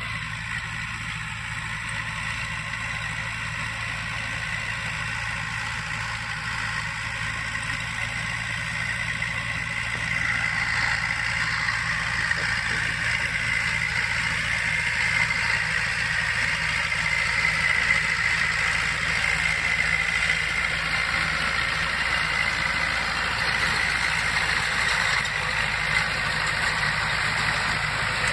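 Massey Ferguson tractor engine running steadily as it pulls a Gallignani round baler along a hay windrow, picking up hay, with the baler's machinery running behind it. It grows louder about ten seconds in as the tractor draws near.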